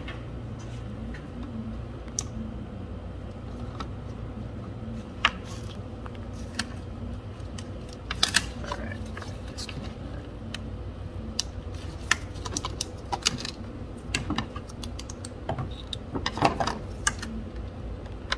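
Scattered light plastic clicks and knocks from hands working among connectors, hoses and intake parts in a car's engine bay, bunched in short flurries over a steady low hum.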